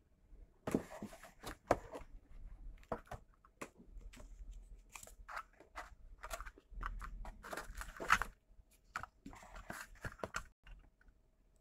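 Hands handling the contents of a cardboard box: crinkling of paper and plastic packaging with scattered knocks and clicks, in irregular bursts that stop shortly before the end.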